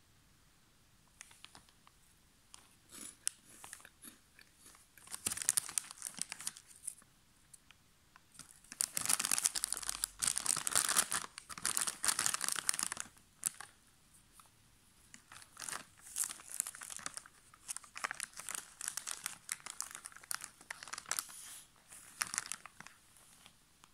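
Foil-lined plastic snack packet of Super Crisp Chatty Chips cheese corn bites crinkling and rustling as it is handled, in irregular crackly bursts, loudest near the middle.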